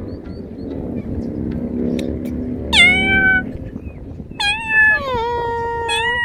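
Tabby cat meowing repeatedly: four meows in the second half, each starting high and sliding down in pitch, the last one held longer.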